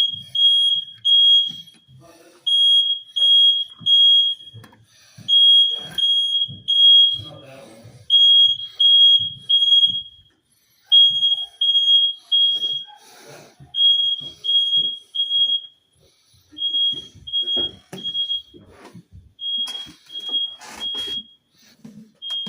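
Smoke alarm sounding, a loud high-pitched beep in repeated groups of three with a short pause between groups, the standard three-pulse fire evacuation pattern. It is a false alarm: there is no smoke or fire in the apartment. Faint knocks from movement come between the beeps.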